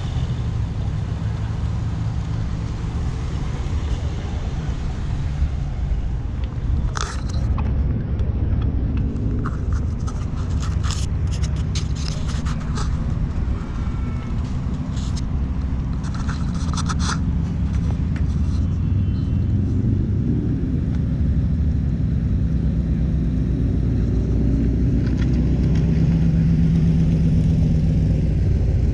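Car engines running with a steady low rumble, one engine note growing louder in the last few seconds. Scattered clicks and taps in the middle.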